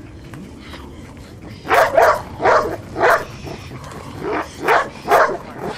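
Doberman barking at a decoy teasing it with a bite sack, a run of sharp barks about two a second that starts a little under two seconds in.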